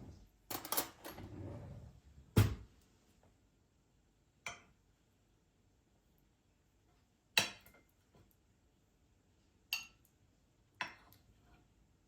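Dishes and utensils being handled: a rustle at first, then a string of separate clinks and knocks a second or more apart, the loudest a solid knock about two and a half seconds in.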